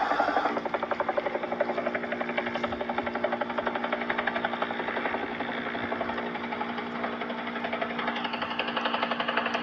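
Helicopter rotor chopping in a rapid, even beat over a steady engine hum, hovering.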